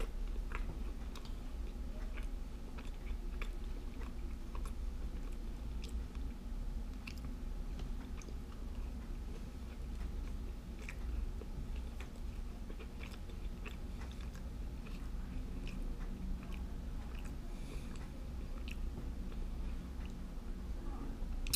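A person chewing a mouthful of oven-baked Cinnamon Toast Crunch Bites, a pastry with a crunchy cinnamon-sugar crust, close to the microphone. Small, irregular crunches and mouth clicks run all through it.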